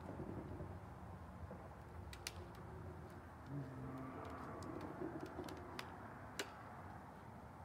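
Faint, scattered light clicks and taps of small items being handled on a work table, over a low steady outdoor rumble.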